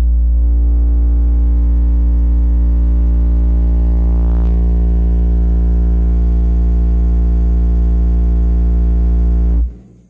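Toro Tech Force 8 car subwoofer in an SPL Jeep playing a steady, very deep bass test tone at about 100 watts, with a buzz of overtones above it, reaching about 139 dB on the meter. It holds for nearly ten seconds, then cuts off sharply near the end.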